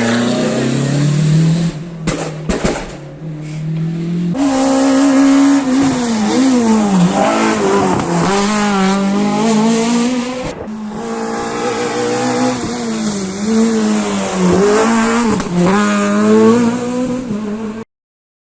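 Rally car engines revving hard through a run of edited passes, the pitch climbing and dropping sharply with gear changes and lifts off the throttle. The sound stops abruptly near the end.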